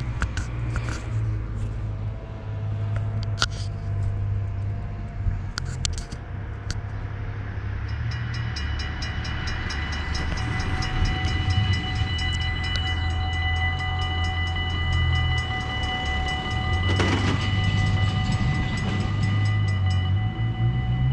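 Dutch level-crossing warning bells, one electronic and one mechanical, start ringing about eight seconds in. They make a steady, rapid ringing while the barriers come down.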